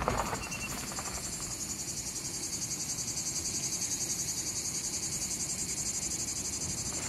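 Cicadas buzzing in a steady chorus with a fast, even pulse.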